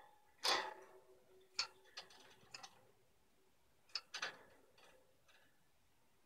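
European goldfinch clambering on the wire bars of its cage: irregular sharp metallic clatters, about six of them, the loudest about half a second in, followed by a faint ringing from the wire.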